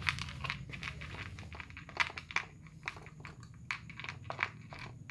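Two cats eating from plastic bowls, crunching dry food in irregular sharp clicks that thin out toward the end, over a low steady hum.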